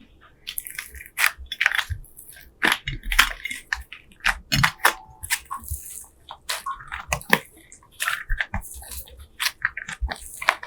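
Slime being squeezed and kneaded by hand, making irregular crackles and pops.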